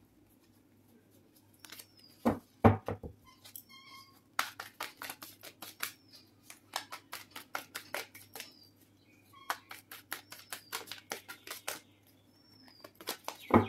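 Tarot cards being shuffled by hand: runs of quick soft clicks and slaps as the cards riffle against each other, with two louder knocks a little over two seconds in.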